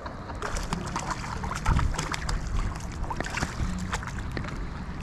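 Wind buffeting the microphone over a running creek, with scattered sharp clicks throughout.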